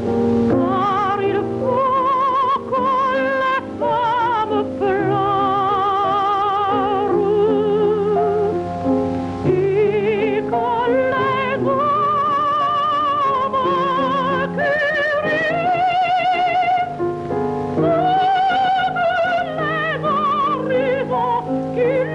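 Soprano singing a classical art song with wide vibrato over instrumental accompaniment, from a 1930s film soundtrack.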